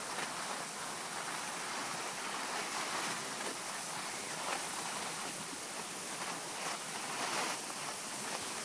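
Skis sliding over packed snow: a steady scraping hiss with a few brief swells.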